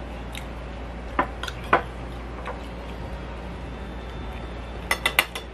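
A metal spoon clinking quickly against a ceramic plate about four times near the end, after a few softer scattered clicks of eating, over a steady low hum.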